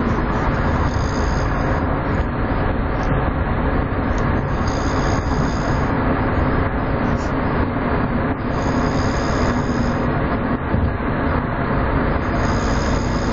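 A person snoring, with a snore about every four seconds, over a steady loud rumbling noise.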